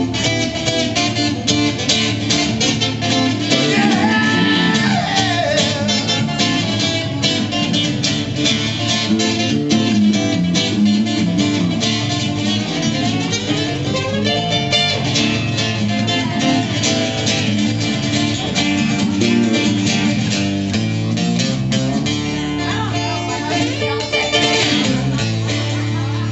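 Live instrumental break of fast country-rock music, led by rapidly picked and strummed guitar, with no singing.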